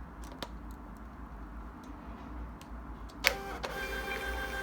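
A few light clicks, then about three seconds in a thermal label printer starts printing a test label: a sharp click followed by a steady motor whir with a held high tone. The test print shows the printer now works on the newly selected USB port.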